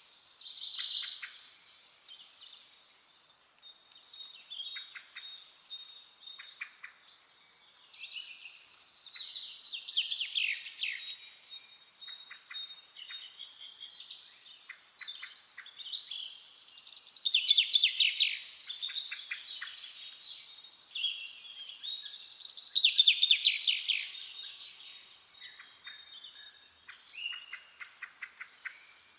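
Rose-ringed parakeet chicks begging while being fed: repeated bursts of rapidly pulsed, high calls, loudest in three stretches. A faint steady high tone runs underneath.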